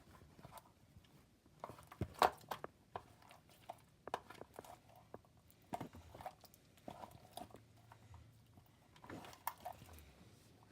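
Slime mixed with lotion being squeezed and kneaded by hand: faint, irregular squelches and small sticky pops.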